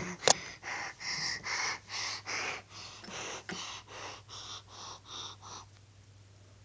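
A child's rapid, breathy puffs of air, about three a second, stopping about a second before the end, with one sharp click just after the start.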